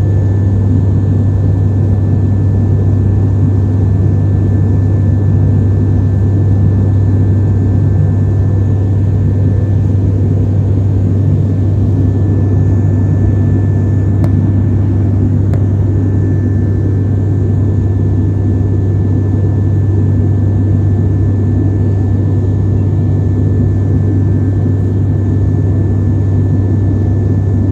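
Steady, loud drone of an airliner in flight heard from inside the cabin: a deep, unchanging hum with a faint steady high whine above it.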